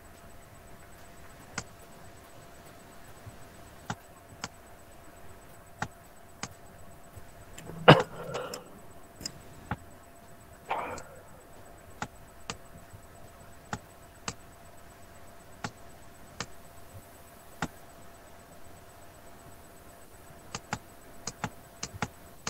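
Faint computer mouse clicks, scattered about one every second or so, as cubes are clicked off an on-screen grid. About eight seconds in there is a louder knock followed by a short noise, and another short noise near eleven seconds.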